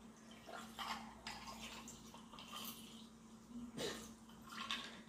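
A steady faint hum with a few soft, short handling noises scattered over it.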